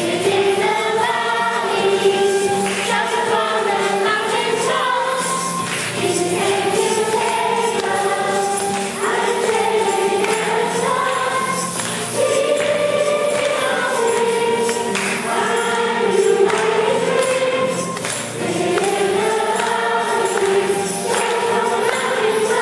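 Youth choir singing a worship song in a church, several voices carrying the melody, with shaken percussion keeping a beat.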